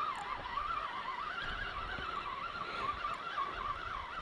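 Carp reel's baitrunner (free-spool) clicker buzzing without a break as a hooked fish pulls line off the spool. The buzz wavers up and down in pitch as the fish's pull speeds up and slows.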